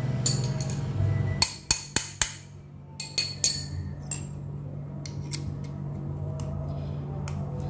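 Sharp metallic clicks and clinks of a small hand tool knocking against the metal housing of a Toyota Corolla ignition distributor being taken apart by hand: about six between one and a half and three and a half seconds in, then fainter taps. A steady low hum runs underneath.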